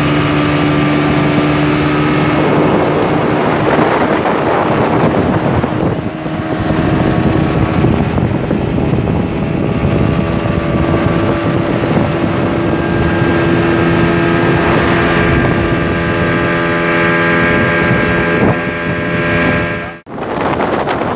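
Speedboat engine running steadily at speed, with a hum whose pitch shifts a little. Wind and rushing water hiss over it. The sound breaks off abruptly near the end at a cut.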